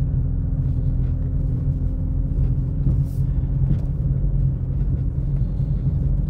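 Car cabin noise while driving: a steady low rumble of engine and tyres on the road, with a faint steady hum that stops about two-thirds of the way through.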